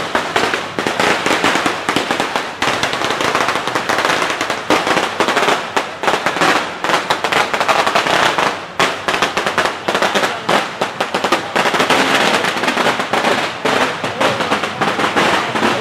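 Strings of firecrackers going off in a loud, dense, rapid crackle, with only a few brief lulls.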